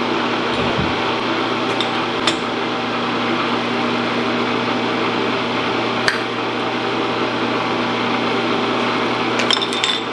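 Steady machine hum under a few sharp metallic clicks and clinks as a T-handle chuck key works a lathe's three-jaw chuck to free a turned nylon part. There is a single click about 2 s in and another about 6 s in, and a quick cluster of clinks near the end as the key is set down on the carriage.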